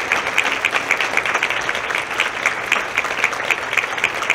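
Large audience applauding steadily, a dense sustained clapping that marks the end of a talk.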